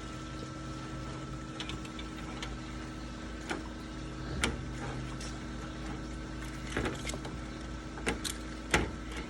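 Plastic screen wheel pressing flat spline into a patio screen frame's metal channel while the mesh is pulled tight: scattered clicks and scrapes, a few sharp ones with the loudest near the end. A steady mechanical hum runs underneath.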